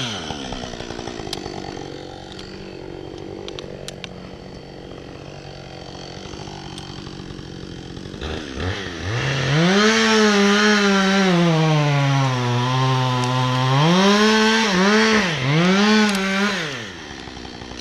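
Gas chainsaw dropping to idle at the start and idling, then revving up about eight seconds in and cutting through a spruce log, its pitch sagging and recovering as the chain works through the wood. After a few quick blips of the throttle it falls back to idle near the end.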